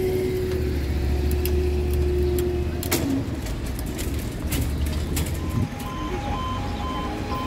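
A road vehicle's engine runs with a steady held note that drops away about three seconds in. From about six seconds a level crossing warning alarm starts, alternating evenly between two pitches.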